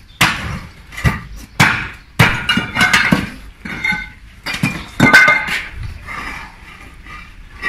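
Thin paving slabs being prised up and knocked with a long-handled tool. There are a dozen or so sharp clinks and knocks at irregular intervals, some with a short ringing note, as tool and slabs strike each other.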